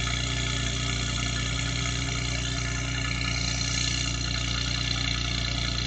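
Car engine idling steadily, heard at its twin exhaust tailpipes, with no revving.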